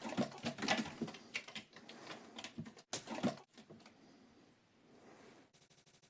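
Rapid, irregular tapping and clicking in a small room, broken by abrupt cuts. Near the end a fast, even rattle of ticks.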